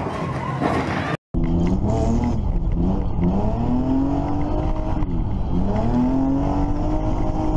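BMW car engine heard from inside the cabin, revving under acceleration. Its pitch climbs, dips twice, about three and five seconds in, and climbs again each time before holding steady. In the first second a loud noisy title sound cuts off suddenly just before the engine comes in.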